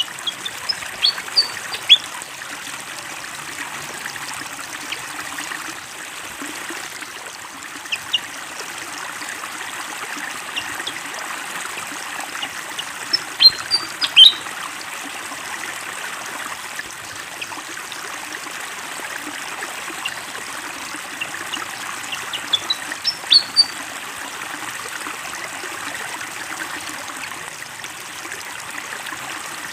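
Steady flowing water, with a pied fantail singing short, high, sharp chirping phrases in four brief bouts spread across it. The loudest bout comes about halfway through.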